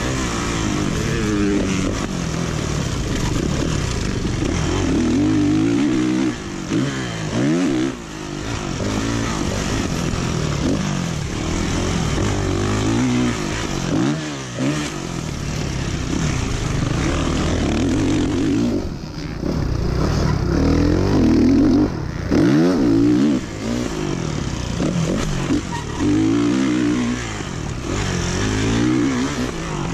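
Motocross dirt bike engine revving hard under load, its pitch rising and falling again and again as the throttle is opened and rolled off around the track.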